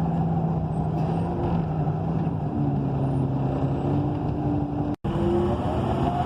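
Cummins Westport ISL G natural-gas engine and Allison B300R automatic transmission of a 2012 ENC EZ Rider II transit bus, running under way and heard from inside the cabin. About two and a half seconds in, the engine's pitch steps down, as at a gear change. The sound cuts out for an instant near the end.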